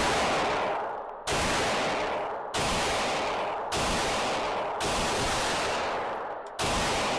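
Glock 19X 9mm pistol fired five times at a slow, deliberate pace, roughly one to two seconds apart, each sharp report echoing away before the next.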